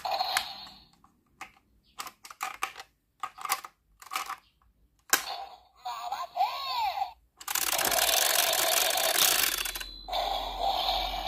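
Plastic clicks from a Zenkaiger Geartlinger toy gun being handled and its gear wheel turned. Then comes the toy's electronic sound effects from its small speaker: a warbling sweep, a noisy blast of about two and a half seconds, and a pitched effect after that.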